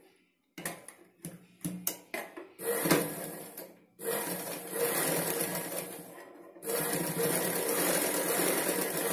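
Domestic straight-stitch sewing machine stitching cotton-weight fabric. A few short clicks during the first couple of seconds, then the machine runs in stretches, with brief pauses about four and about six and a half seconds in.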